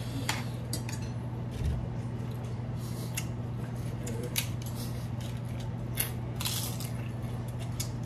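Forks clinking and scraping against dinner plates as people eat: a scattering of sharp clicks, with a longer scraping sound about six and a half seconds in, over a steady low hum.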